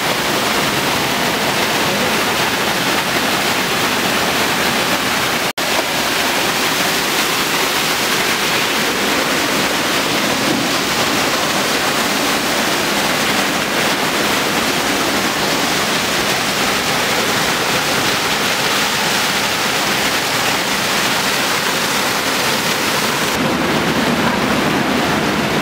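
Muddy monsoon floodwater rushing loudly and steadily, a continuous roar of water with no let-up. There is a brief break about five and a half seconds in, and the sound turns a little duller near the end.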